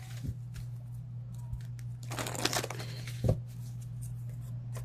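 Tarot cards being shuffled and handled: scattered light clicks, a brief rustle a little past two seconds in and a soft thump just after three seconds, over a steady low hum.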